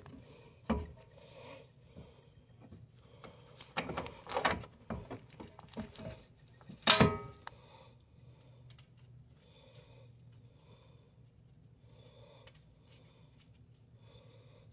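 Metal lift-kit parts and bolts being handled and fitted by hand: a few sharp clanks and knocks, a cluster about four seconds in and the loudest about seven seconds in, then faint small clicks.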